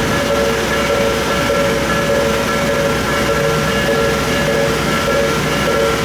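Japanese railway level-crossing alarm ringing its repeating electronic two-tone warning chime, with the steady rumbling noise of a train passing the crossing underneath it.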